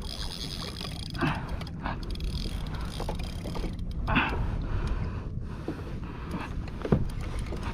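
Steady rumble of wind and water on a kayak at sea, with a few short knocks and rustles as a fishing rod and reel are worked against a hooked fish.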